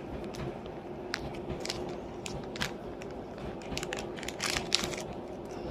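Crinkling and crackling of packaging being handled, with scattered small crackles and clicks over a steady faint hum.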